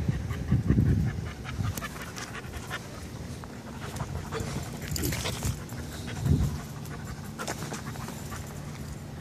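Young dog panting rapidly after play, with heavy low thumps at the start and again about six seconds in.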